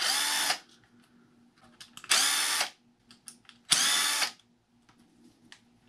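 Cordless power drill-driver running in three short bursts of about half a second each, a steady motor whine, spinning out small screws on an RC car chassis. Light clicks between the bursts.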